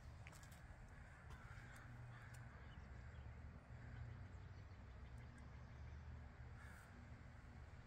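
Near silence: faint outdoor background with a steady low rumble and a few faint, distant bird calls.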